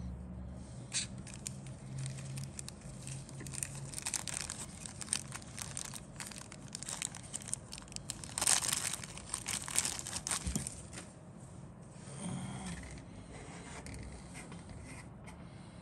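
Clear plastic kit-parts bag crinkling and rustling in the hands, in a long run of irregular sharp crackles that peak about eight to nine seconds in, then settle to a softer rustle near the end.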